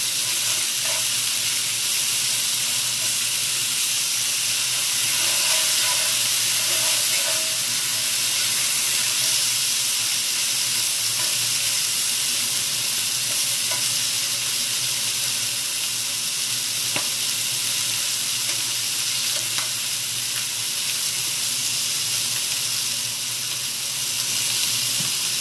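Chicken pieces frying skin side down in a smoking-hot cast iron pan, a steady sizzle as the fat renders from the skin, with a few clicks of a utensil against the pan.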